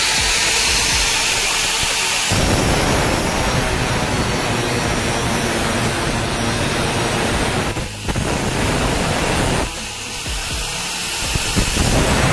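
Angle grinder with a thin cutting disc, first spinning with a high whine, then from about two seconds in cutting into a steel saw blade with a loud, harsh grinding noise that eases briefly twice near the end.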